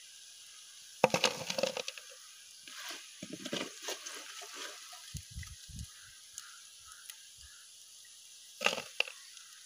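A wire spider strainer and a metal spoon scraping and clinking against an aluminium pot while crisp deep-fried young jackfruit pieces are lifted out of the hot oil. There is a loud clatter about a second in, softer rattling after it, and another clatter near the end.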